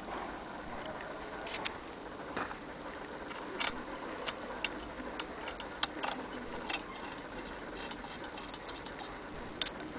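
Antique hand-crank sewing machine mechanism clicking as it is handled at the shuttle: about a dozen sharp, unevenly spaced clicks and ticks.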